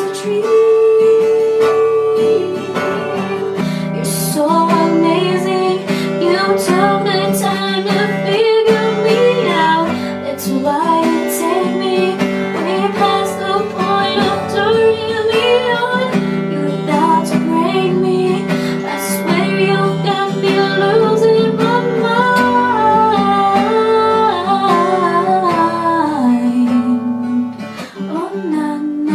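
Acoustic guitar strummed through a chord progression, with a woman's voice carrying a wavering melody over it.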